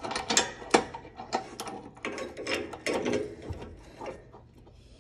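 Steel deck-lift chain of an Exmark zero-turn mower clinking and rattling as it is handled and hooked onto the brass deck-leveling bracket: a quick, irregular run of metal clicks that thins out in the last second or so.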